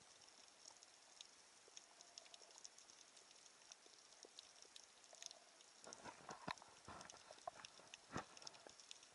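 Faint, dense crackling and clicking as heard underwater, with a run of louder knocks from about six seconds in.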